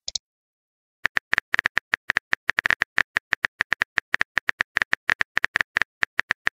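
Phone keyboard typing sound effect: a run of rapid, uneven key clicks starting about a second in and lasting about five seconds.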